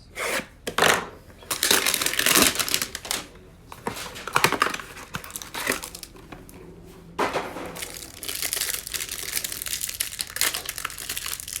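Plastic wrapper and cardboard of a trading card hanger box being torn open and crinkled by hand, in irregular bunches of crackling and tearing.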